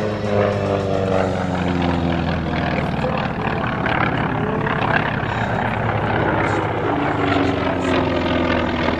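North American T-28 Trojan radial engines and propellers making low fly-bys, the engine drone sliding down in pitch as the first plane passes. A second T-28 goes by near the end with another falling drone.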